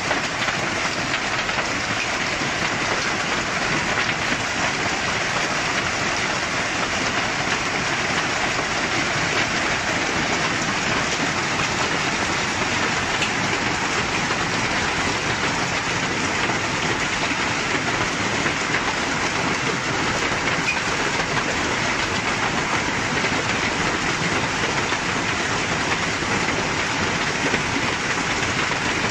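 Heavy hailstorm of golf-ball-sized hailstones: a dense, steady clatter of hail pelting the lawn, pavement and parked cars.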